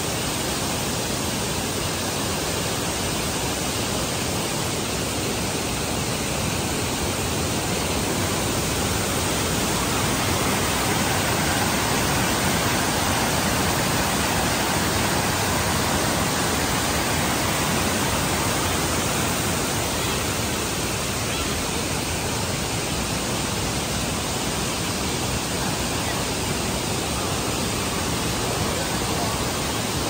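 Steady rush of falling water from the Tad Sae waterfall's tiered cascades. It grows slightly louder from about eight seconds in until about twenty seconds in.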